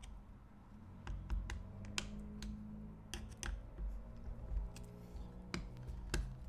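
Irregular small metallic clicks and taps, about a dozen of them, as the hub and cover plate of a Baldwin mortise lock are pressed and snapped back into the lock case, over a low steady hum.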